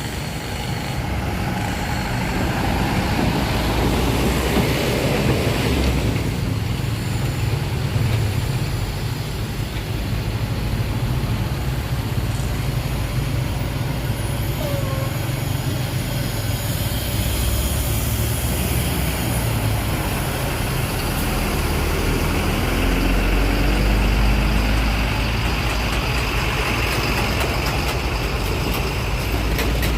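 Heavy road traffic: the large diesel engines of buses and trucks running and passing close by, a continuous low rumble.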